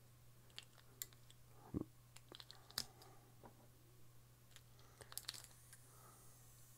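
Faint clicks and taps of AA batteries being pressed into a plastic two-cell battery holder against its spring contacts: a few scattered clicks, a clearer one about two seconds in and another near three seconds, then a small cluster about five seconds in.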